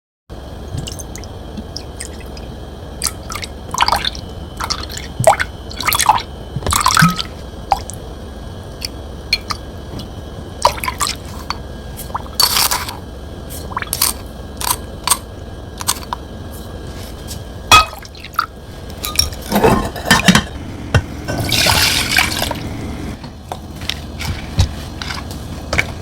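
Close-miked eating-show sounds: many irregular clicks and taps of utensils against dishes, mixed with wet food sounds, over a steady low hum. A longer stretch of busier handling comes a few seconds before the end.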